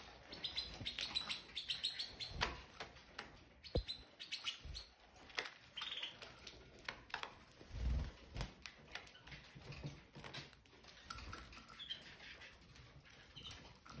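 Red factor canaries chirping now and then in a cage, with many small clicks as they peck at seed, and a few soft thumps.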